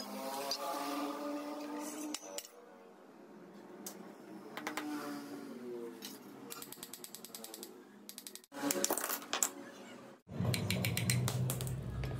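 Metal parts of an old drill press being handled and worked loose during disassembly: clinks, knocks, scrapes and squeaks of metal on metal. The sound breaks off briefly twice, at cuts, and ends on a louder low hum.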